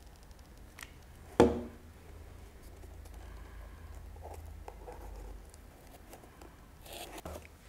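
A single sharp knock as a hot glue gun is set down on the work table, then soft scraping and rustling of cardboard as the small cardboard box is handled and its flaps are pressed shut.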